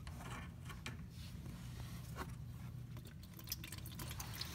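Faint, scattered clicks and scrapes of channel-lock pliers working a seized plastic radiator drain petcock, over a low steady hum.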